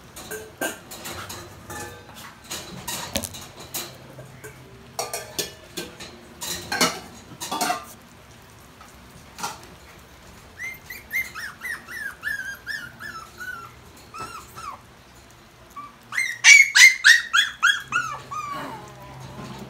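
Toy poodle puppies squealing and whining in rapid runs of high-pitched, downward-falling yelps, loudest about three-quarters of the way through. In the first half there are scattered clicks and taps from the puppies at the kibble tray on the plastic slatted floor.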